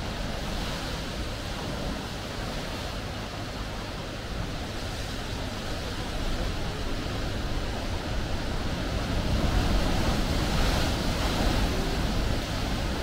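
Sea waves washing, with wind rumbling on the microphone; the wash grows louder about nine seconds in.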